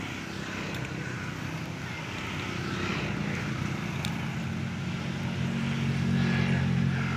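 Low, steady hum of a motor engine running, growing louder in the second half as it draws nearer.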